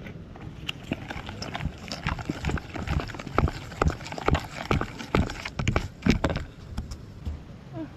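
Wooden spoon stirring marinade in a plastic bowl, knocking and scraping against the bowl's sides in a quick, irregular run of clacks.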